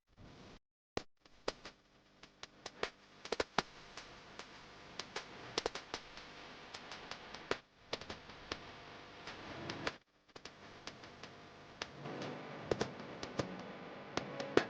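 Many irregular sharp clicks and taps over a steady low background noise, cut by brief drop-outs about a second in, near eight seconds and around ten seconds.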